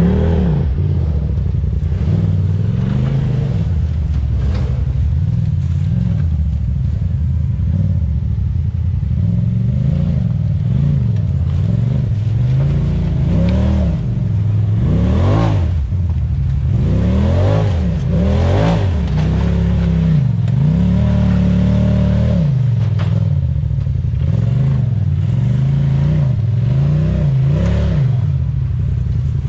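Side-by-side UTV engine revving up and down in repeated throttle blips while rock crawling up a slick creek-bed trail. The pitch swings quickest and highest around the middle.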